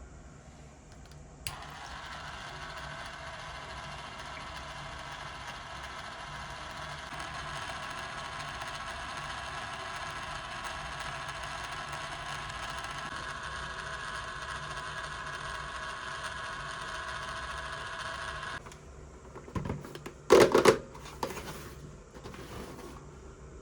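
A small battery-powered motor in a toy kitchen appliance switched on with a click, running with a steady whir for about seventeen seconds before cutting off suddenly. A few loud plastic knocks and clatters follow.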